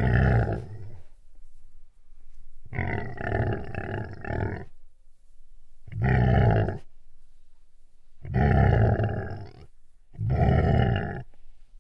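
Chewbacca-style Wookiee growls, five long, wavering calls of a second or two each with short pauses between.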